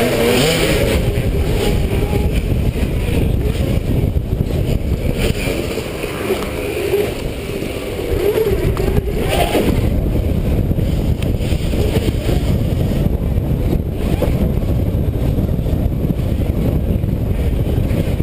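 Onboard sound of a 2012 Zero MX electric dirt bike racing along a dirt trail: a loud, steady rush of wind and ground noise on the bike-mounted microphone, with a wavering whine from the bike rising and falling with speed.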